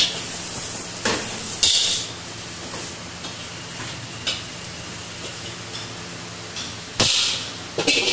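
Noodles sizzling in a hot wok as they are tossed and stirred, under a steady frying hiss. Several sharp scrapes and clanks of the metal ladle on the wok break through it, the loudest about seven seconds in.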